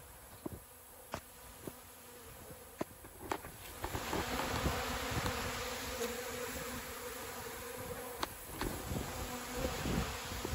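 A crowd of honeybees buzzing in a dense steady hum as they feed on an open tub of dry pollen-substitute powder. The buzz grows louder about four seconds in, with scattered sharp ticks.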